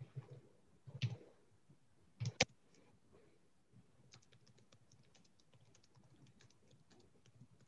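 Typing on a computer keyboard: a few louder clicks and knocks in the first few seconds, then a run of light, quick, uneven key taps.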